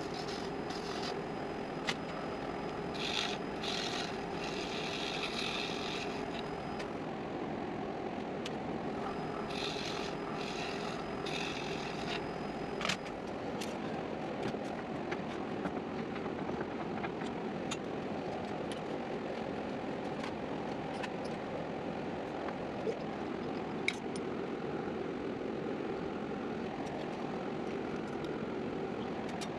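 Steady drone of woodworking machinery, with scattered clicks and two stretches of hissing about 3 and 10 seconds in, as a half-inch drill bit bores into a spinning cedar blank on a wood lathe.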